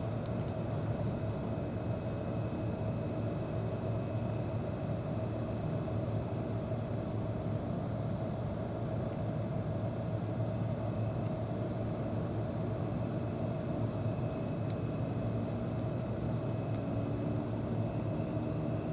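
Steady mechanical drone with a constant low hum and a higher steady tone, unchanging throughout, with a few faint ticks.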